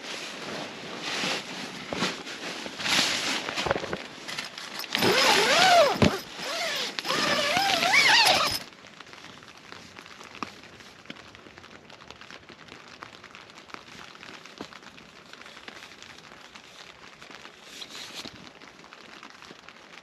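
Rustling of nylon tent fabric and gear being handled, with a zipper drawn in a few uneven pulls that give rising and falling whines, then only the faint steady patter of rain on the tent.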